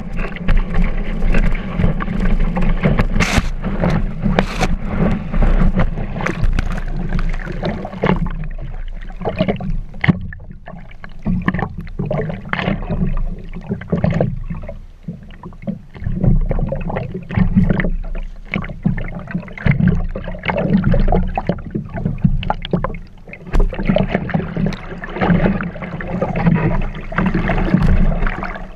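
Water rushing and splashing against a kiteboard, heard from a camera mounted on the board, with wind buffeting the microphone. The splashes come in irregular bursts, easing off a little about eight seconds in.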